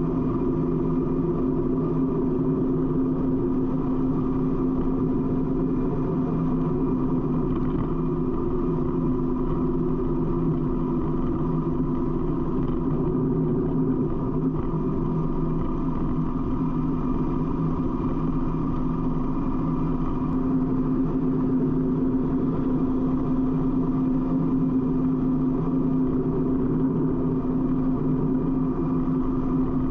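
Harley-Davidson V-twin motorcycle engine running steadily at highway cruising speed, an even drone that holds the same pitch throughout, with road and wind noise underneath.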